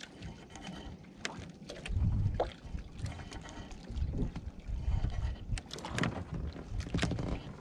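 Wind buffeting the microphone and water moving around a small drifting outrigger fishing boat, in irregular low gusts, with a few sharp clicks.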